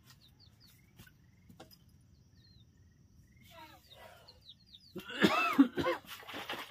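An animal giving a quick run of short cries that rise and fall in pitch, about five seconds in, with faint high bird chirps before it.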